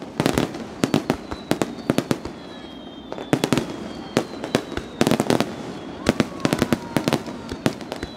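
Aerial firework shells bursting in a rapid barrage: clusters of sharp bangs, several a second, coming again and again.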